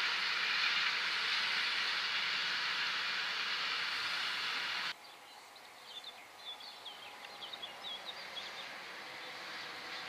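Container freight train's wagons rolling past with a steady rushing noise that cuts off abruptly about halfway. In the quieter stretch that follows, birds chirp in short bursts, and near the end the sound of an electric passenger train rises as it draws near.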